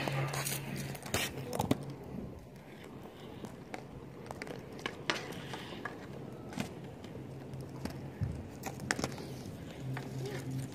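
Scattered light taps of a hockey stick and street hockey ball on asphalt, a few seconds apart, over a steady low hum.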